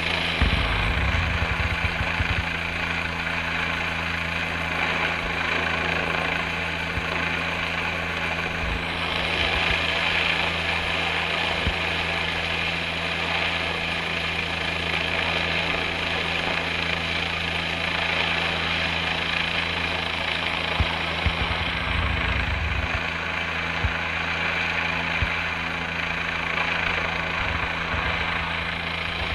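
Helicopter hovering overhead, its rotor and turbine running steadily while it lifts a person on a short-haul line. Low rumbling gusts of rotor downwash hit the microphone near the start and again about two-thirds of the way through.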